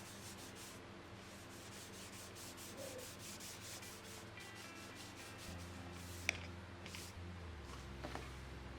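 Hand sanding of wood: quick repeated rubbing strokes of sandpaper, several a second, with a sharp click about six seconds in.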